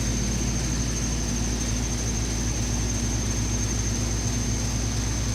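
Steady hum of running air-conditioning equipment: a low electrical drone with a thin, constant high whine above it.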